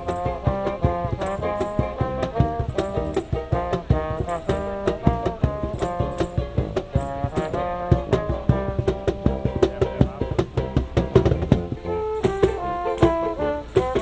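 Live acoustic band playing: trombone and tuba carry the tune over a cajón beat, with a shaker rattling in pairs of strokes that drops out for a few seconds in the middle.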